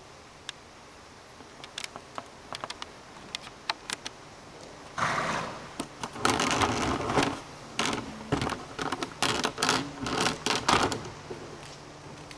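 A few people clapping: scattered claps at first, then a dense spell of applause about five seconds in that comes in a few bursts and dies away near the end.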